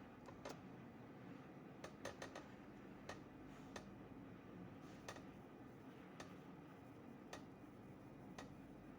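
Faint sharp clicks over near silence: a quick irregular run of them in the first few seconds, then single clicks about once a second.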